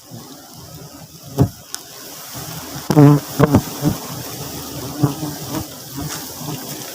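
Honeybees buzzing, with several bees flying close past the microphone as short hums that rise and fall in pitch, over a steady hiss. A few sharp clicks come early on.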